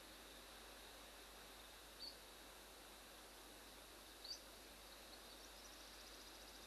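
Near silence: faint steady outdoor hiss, broken by two short, high, upward-hooked chirps, about two and four seconds in, and a faint rapid trill near the end.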